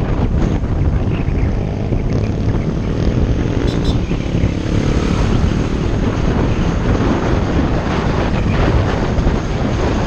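Wind rushing over the microphone on a moving vehicle, with steady engine and road noise underneath.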